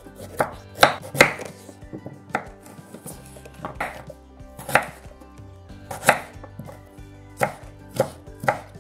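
Kitchen knife slicing fresh ginger on a wooden cutting board: a dozen or so sharp knocks of the blade on the board at an uneven pace, roughly one every half second to a second.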